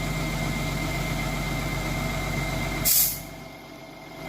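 An engine running steadily at idle. About three seconds in comes a short, sharp hiss, and the engine sound then falls away much quieter.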